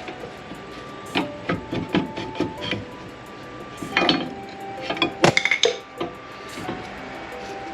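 Clinks and knocks of metal brake parts and tools being handled at a car's rear disc brake, in scattered clusters with a quick run of clicks about five seconds in. Soft background music plays underneath.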